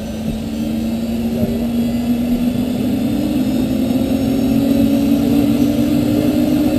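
Helicopter engine and rotor running up on the ground: a steady whine that slowly rises in pitch and grows louder as the rotor comes up to speed.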